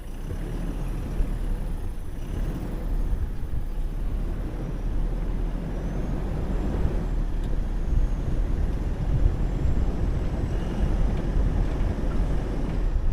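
Vehicle driving on a rough track: a steady, loud low rumble of engine and tyres, a little louder after the first second.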